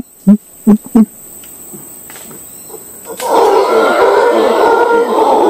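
A few short, deep grunting calls, a man imitating howler monkeys, in the first second; then about three seconds in, a troop of howler monkeys answers with a loud, dense roaring chorus that keeps going.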